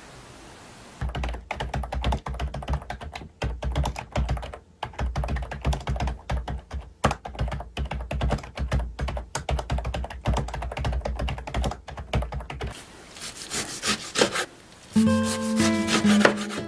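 Fast typing on a full-size computer keyboard: a dense, irregular run of key clicks with low thuds, starting about a second in and fading out about four seconds before the end. Near the end background music comes in together with a knife chopping on a wooden cutting board.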